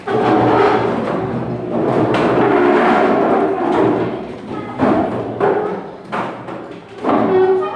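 Classroom commotion as children move into groups: desks and chairs knocking and scraping, with a clatter of several sharp knocks among a busy hubbub of children's voices.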